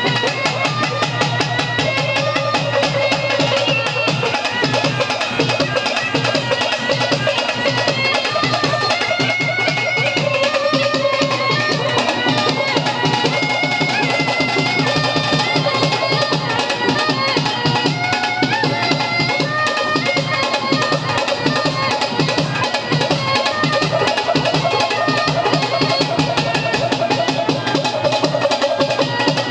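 Loud, continuous music driven by fast, steady drumming, with a melody over it.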